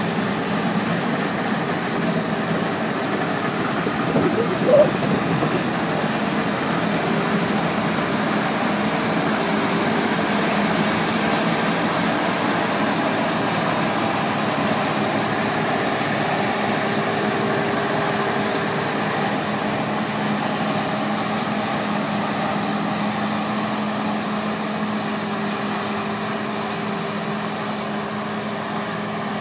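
Claas Avero 240 combine harvester running while harvesting grain: a steady engine and threshing drone with a low hum that grows a little fainter near the end as the machine moves off. A brief sharp bump sounds about five seconds in.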